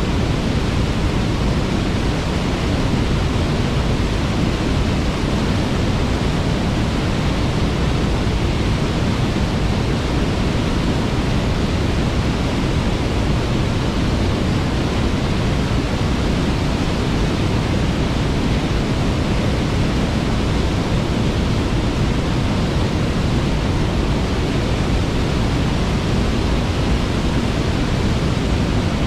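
Waterfall and its stream running: a loud, steady rush of falling water, deepest in the low range, with no change throughout.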